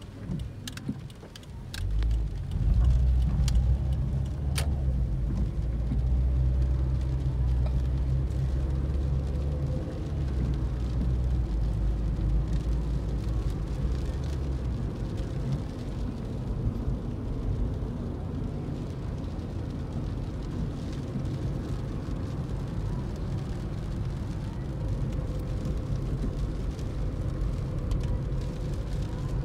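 Small 2005 Toyota hatchback heard from inside the cabin while driving: engine and road noise, with a strong low rumble from about two to fifteen seconds in as it gets under way, then a steadier drone. A few sharp clicks come in the first few seconds.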